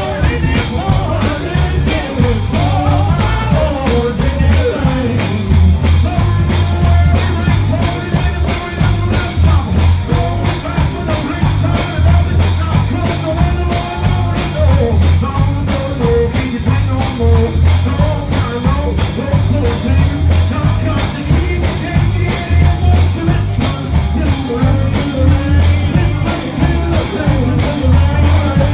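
Gospel song with singing over a band: drums keep a fast, steady beat above a heavy bass line.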